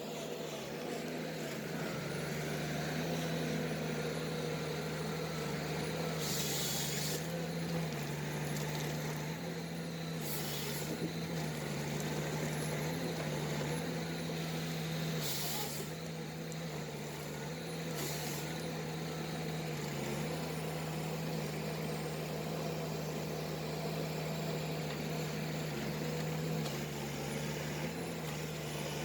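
Diesel engine of a Ponsse forestry machine running steadily, its speed shifting slightly now and then. Four short hisses come over it, about six, ten, fifteen and eighteen seconds in.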